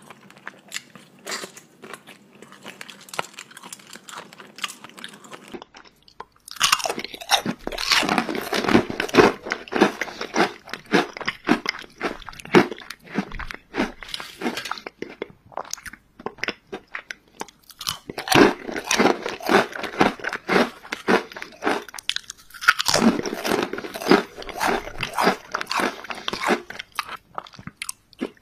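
Softer chewing for the first few seconds, then from about six seconds in, loud crunching of ridged potato chips being bitten and chewed close to the microphone. The crunching comes in spells with a couple of short pauses.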